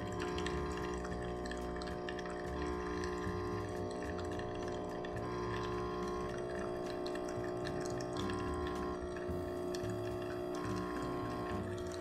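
De'Longhi espresso machine pulling a shot, coffee trickling and dripping into a glass cup, with soft background music of held chords.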